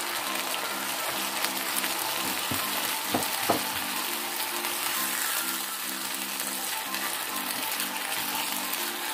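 Black beans and chopped vegetables sizzling in hot oil in a frying pan while being stirred with a spatula, with a few sharp knocks of the spatula against the pan about three seconds in.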